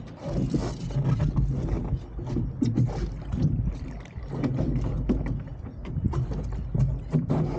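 Water splashing and rushing against the hull of an RS300 sailing dinghy under way, in surges that swell and ease every second or two, with wind buffeting the microphone.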